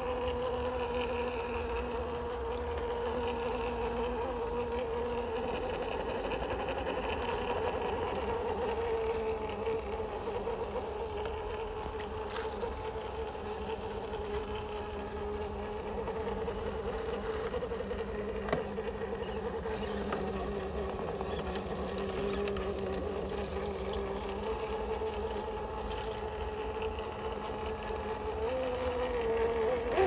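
Electric motor and gearbox of a radio-controlled scale crawler truck whining steadily, the pitch drifting slowly up and down with throttle, with a few scattered clicks.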